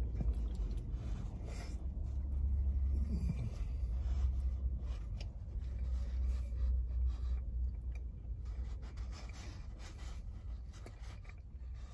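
A person chewing a tortilla wrap, with small wet mouth clicks and smacks and light rustling, over a low steady rumble in a car cabin.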